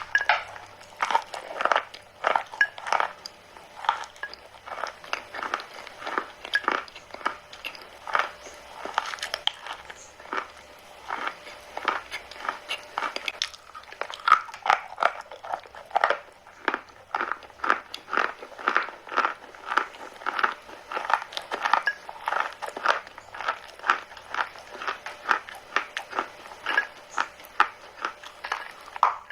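Chalk being bitten and chewed close to the microphone: a continuous run of crisp, dry crunches, several a second.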